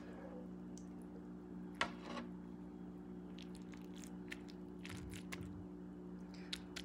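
Faint squishing and soft clicks of a slotted spoon pressing ground-meat stuffing into a raw turkey in an aluminium foil roasting pan, with a sharper tap about two seconds in. A steady low hum runs underneath.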